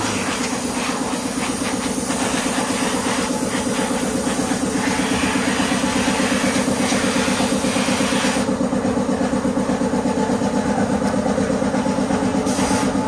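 Paint spray gun hissing as brown paint is sprayed, over the steady, rapidly pulsing hum of a running air compressor. The hiss cuts off about two thirds of the way through, with one short burst again near the end.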